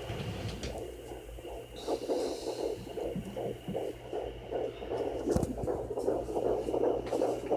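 Home fetal doppler picking up a fetal heartbeat at 15 weeks: a fast, even pulse of about two and a half beats a second, coming through clearer about two seconds in, over a steady electronic hum.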